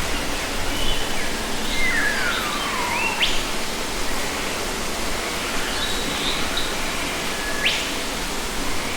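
Wild birds calling over a steady rushing background noise: a long whistle falling in pitch about two seconds in, sharp rising notes about three seconds in and again later, and a few faint short high chirps in between.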